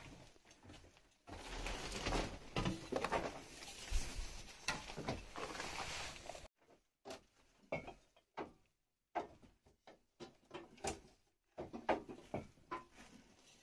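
Things being handled and moved about: several seconds of rustling, then scattered knocks and clunks.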